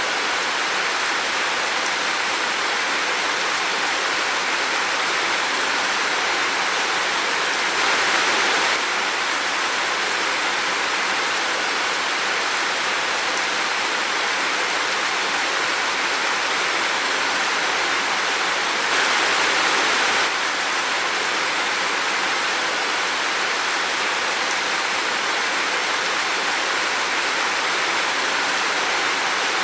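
Heavy rain falling steadily, a dense even hiss, briefly louder twice, about eight and nineteen seconds in.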